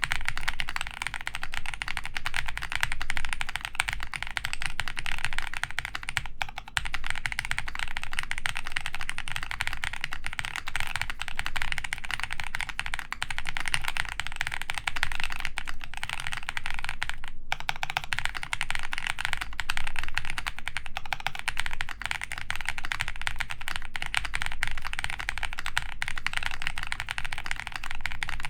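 Steady, fast typing on a G-Square Studio Vintage 60S mechanical keyboard with Vertex V-One switches, a full polycarbonate plate and DCS keycaps: a dense, unbroken stream of key clacks.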